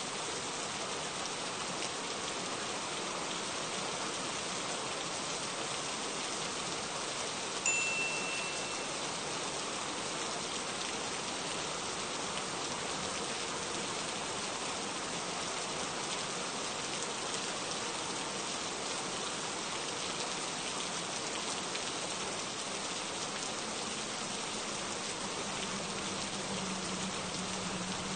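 Steady rain falling, an even hiss of many drops. About a quarter of the way in, one short, high ringing tone sounds for about a second.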